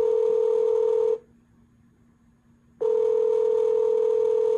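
Telephone ringback tone on an outgoing call, the line ringing at the other end before anyone picks up. A steady low tone sounds twice: about a second and a half, a pause of about the same length, then about two seconds.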